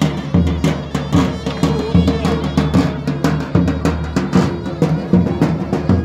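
Traditional folk dance music led by a large davul drum, struck in a quick, steady rhythm under a sustained melody line.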